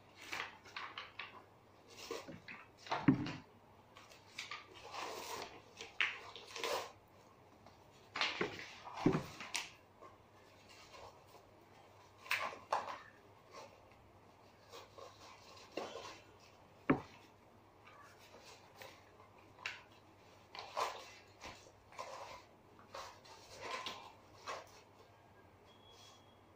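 Number cards being pulled out of and slotted into a paper counting chart by hand: scattered rustles, scrapes and light taps at irregular intervals, with one sharper click partway through.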